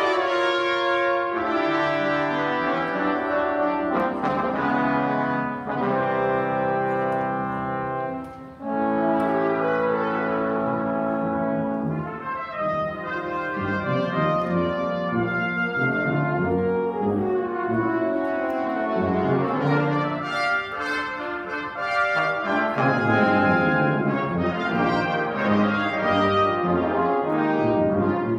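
Brass ensemble of trumpets, trombones and tuba playing a fanfare in loud held chords, with a short break about eight seconds in.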